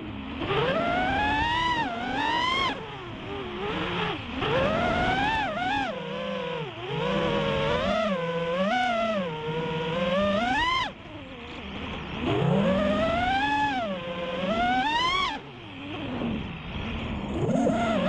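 FPV quadcopter's Emax Eco 2207 1700 kV motors spinning Gemfan Hurricane 5146 propellers, heard from the onboard camera as a whine. The pitch rises and falls with the throttle, with several steep climbs that drop off suddenly as the throttle is chopped, near three, eleven and fifteen seconds in.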